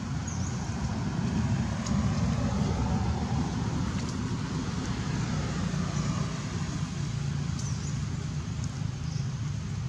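Steady low background rumble, with two faint, brief high chirps.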